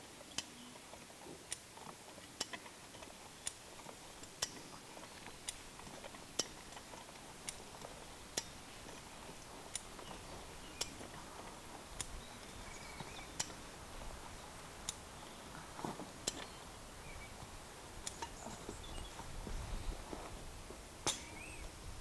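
A Hi-Lift farm jack being worked by hand, one sharp metal clack per handle stroke. The clacks come about once a second, then space out in the second half. A low rustle of movement comes near the end.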